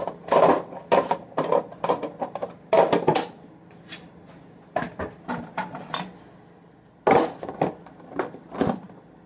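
Plastic food containers and dishes being handled on a kitchen counter: a run of irregular knocks and clatters, pausing briefly about six seconds in.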